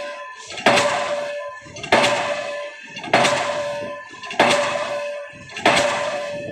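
Diesel pile hammer striking a concrete spun pile: five even blows, one about every 1.25 seconds. Each blow is a sharp bang followed by a ringing tone that fades away.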